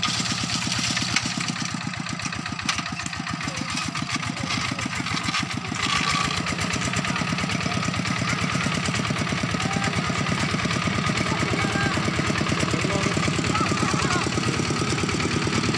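Single-cylinder diesel engine of a two-wheel walking tractor running steadily under load as it works through loose dirt, with an even rapid chugging beat. It gets louder about six seconds in.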